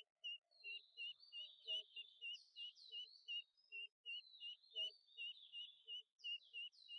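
Faint peeping of domestic ducklings: high falling peeps in little groups over a steady run of short chirps, about three a second.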